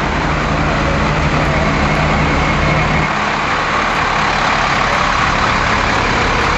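Fire engines idling close by: a steady, heavy engine hum under a constant wash of noise, the low hum easing a little about three seconds in.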